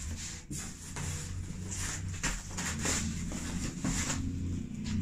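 Rustling, scuffing and light knocking of packages being rummaged through in a cardboard box: a run of short, irregular scrapes and taps over a steady low hum.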